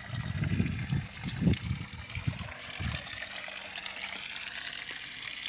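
A thin stream of water pouring from a small pipe spout into a stone-and-tile basin, a steady trickling splash. Some low rumbling bumps come through in the first three seconds.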